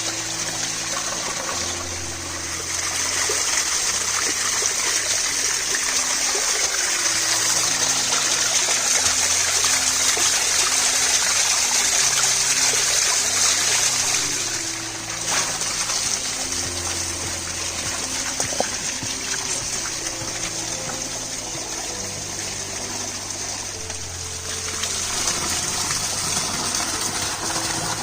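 Background instrumental music with a slow melody of held low notes, over a steady hissing noise like running water or something frying.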